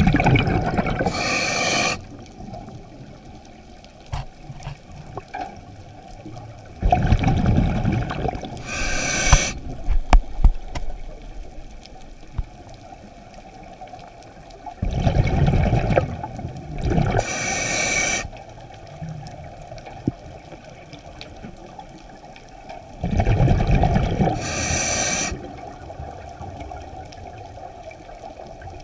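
Scuba breathing through a regulator underwater: four breath cycles about eight seconds apart, each a deep rush of exhaled bubbles followed by a higher hiss from the regulator, with a low hiss between breaths.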